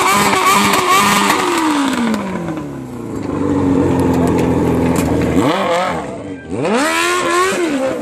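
Motorcycle engine revved hard while standing still. It is held high with a rapid warble, drops steadily to idle about two seconds in, then is blipped up sharply twice near the end.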